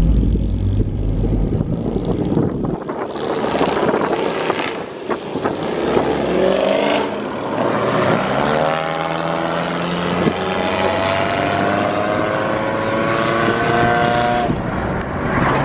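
Car engine with a deep low rumble for the first couple of seconds, then rising in pitch, dropping back once about seven seconds in and climbing steadily again until near the end, as a car accelerating through the gears does.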